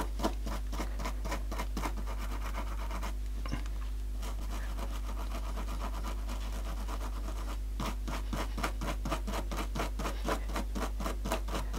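A thin pick scraping dirt out of the little grooves of a small radio volume knob: quick, light scratching strokes, several a second. They pause briefly about three seconds in, run fainter for a while, then come firmer again from about eight seconds in.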